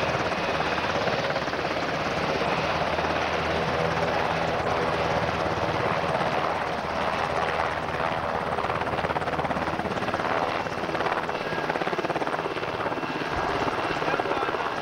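UH-60 Black Hawk helicopter running close by: a steady, loud din of rotor and twin turboshaft engines.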